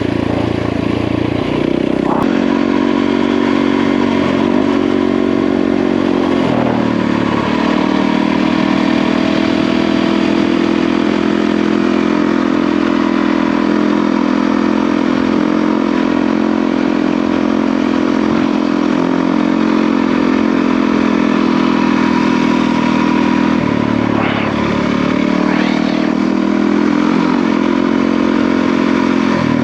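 Yamaha WR450F single-cylinder four-stroke dirt bike engine running steadily under way, its pitch stepping up or down a few times as throttle or gear changes.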